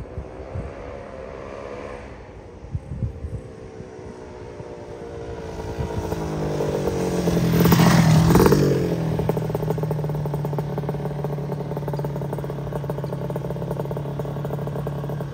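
Drag-race underbone motorcycle engine at full throttle, its pitch climbing through the gears as it approaches, loudest as it passes about eight seconds in with a falling pitch. It then settles to a steady idle.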